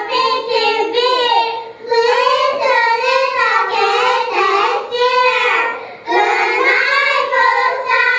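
Young children singing a song together, in phrases broken by short pauses about two seconds in and again about six seconds in.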